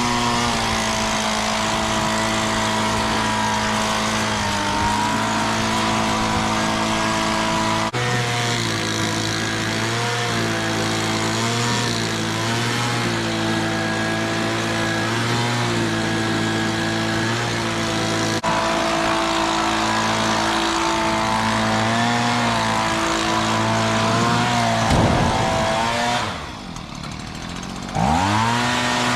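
Combine harvester engine running steadily under load, a constant pitched drone over a haze of machinery noise. Near the end it drops away briefly and comes back rising in pitch.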